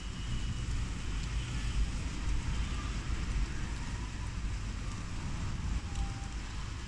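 Steady heavy rain falling, an even hiss with a low rumble underneath.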